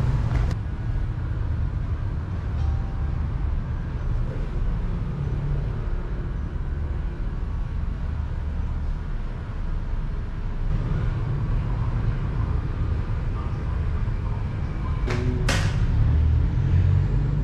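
Low, steady rumble of street traffic, with two sharp clicks close together near the end.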